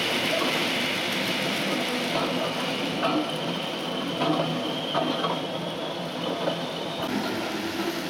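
Model railway goods train of box vans running along the track: a steady rumble of small wheels on rail with a thin high whine that fades out near the end, and a few light clicks.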